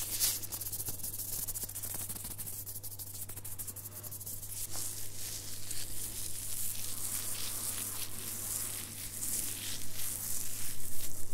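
Close-miked rustling and scratching: gloved hands rubbing and crinkling, then fingers scratching and rubbing through a beard.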